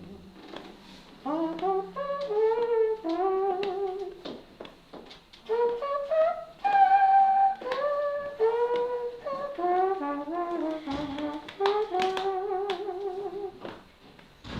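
A solo melody of separate held notes with a slight waver and a brass-like tone, played in short phrases with brief pauses between them.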